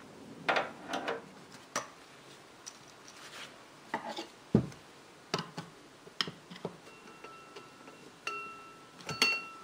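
Scattered clicks and knocks, with one dull thump about halfway, as a Porsche 911SC ignition distributor is handled and worked apart with a hand tool. Small metal clinks ring briefly near the end.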